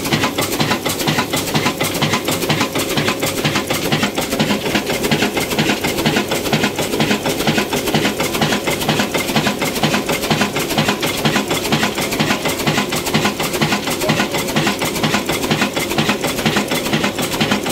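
Old Ruston Hornsby horizontal single-cylinder diesel engine with a large flywheel, running steadily with a rapid, even mechanical clatter.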